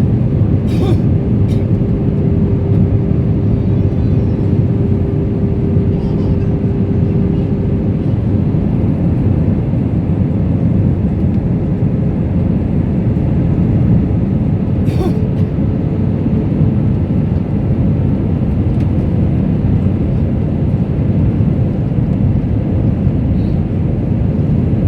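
Steady airliner cabin noise, the engines and airflow heard from inside the cabin, with a steady hum tone in the first half. A few short clicks come about a second in and again about fifteen seconds in.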